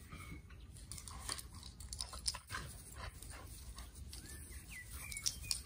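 Two beagles play-fighting and tugging over a dog collar: scuffling on grass and quick clicks and rustles.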